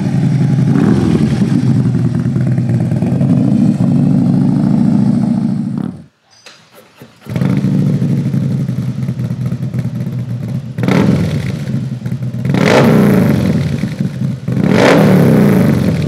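Harley-Davidson Milwaukee-Eight 131 V-twin with a Feuling 592 cam, running loud through a 2-into-1 exhaust with anti-reversion chambers. It runs steadily, cuts out briefly about six seconds in, then comes back and is revved three times near the end.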